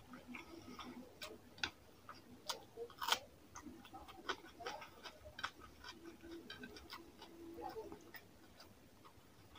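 Close-miked eating sounds: wet, irregular smacks and clicks of mouth chewing rice and fish curry, the loudest about three seconds in.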